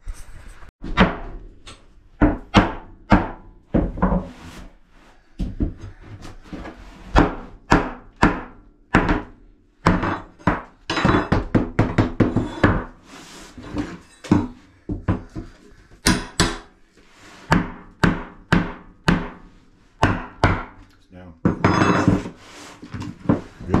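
Hammer blows on an OSB plywood subfloor: a long run of sharp, irregular strikes, some in quick flurries.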